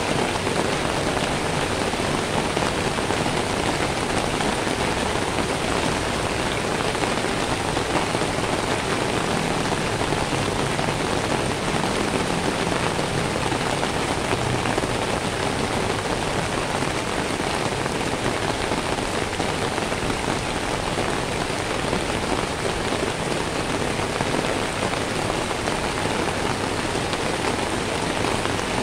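Steady heavy rain falling on wet pavement, an even, unbroken hiss with no thunder.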